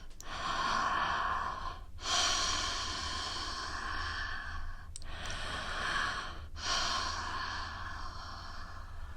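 A woman breathing slowly and deeply, close to the microphone for ASMR: four long breaths, each lasting about one and a half to three seconds, with brief pauses between them.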